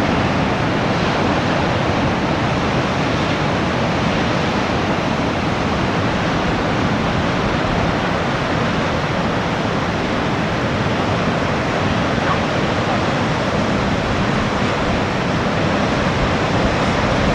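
Sea surf breaking on the shore, a steady, even roar of water with no distinct wave surges.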